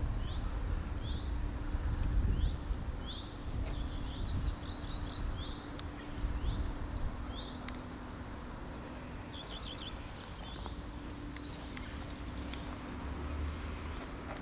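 A small bird calling over and over, short downward-gliding chirps about twice a second with a louder call near the end, over a low steady hum of outdoor background noise.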